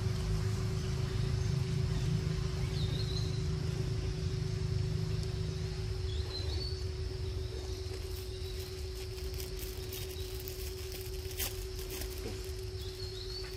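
Outdoor ambience: a low rumble that eases after about six seconds under a constant hum and a steady high insect drone. Three short rising bird chirps come through, about three seconds in, at six seconds, and near the end.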